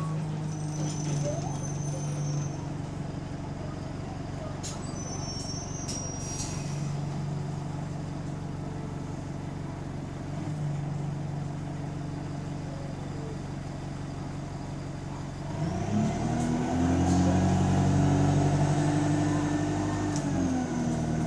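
Diesel engine of a single-deck bus running at a steady low hum, then revving up with a rising pitch as it pulls away about three-quarters of the way through, easing off near the end; the bus has an exhaust leak. A few brief high squeaks come in the first seconds.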